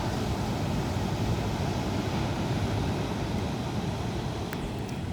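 Steady wind noise buffeting the microphone, mixed with the wash of surf on the beach.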